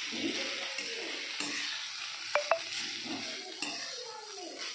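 Rice stir-fry being stirred and tossed with a metal spatula in a hot frying pan, sizzling steadily, with scraping as it is turned. About two and a half seconds in, the spatula gives two quick, ringing metal clinks against the pan.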